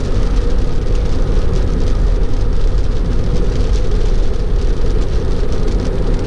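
Steady road noise inside a Tesla Model 3's cabin at about 45 mph on a rain-soaked highway: a low rumble with tyres hissing through water on the pavement.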